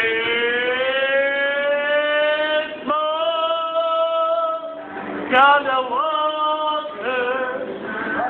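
A voice singing long drawn-out notes: first a note that slowly rises in pitch for about three seconds, then a steady held note, then shorter notes that swoop up and down.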